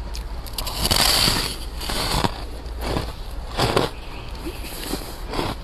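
A bite of powdery deep-freezer frost crunching loudly about a second in, followed by several shorter crunches as it is chewed.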